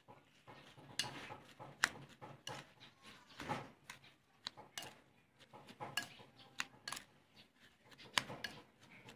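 A metal spoon scraping and clinking against a bowl while tossing a wet shredded mango and tomato salad, with irregular clicks over a soft rustle of the vegetables.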